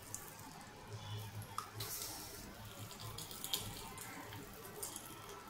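Egg and vegetable batter sizzling faintly as spoonfuls go into hot oil in the cups of a gunta ponganalu (paniyaram) pan, with a few light clicks of the steel spoon.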